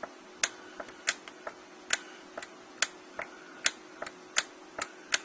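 Korg M1 front-panel buttons being pressed, crisp plastic clicks about once every second with fainter clicks between, while stepping through the Global settings to the MIDI transmit channel. A faint steady hum lies underneath.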